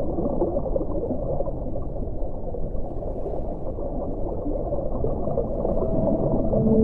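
Underwater ocean ambience: a dense, low bubbling rumble. A long, steady whale call comes in near the end.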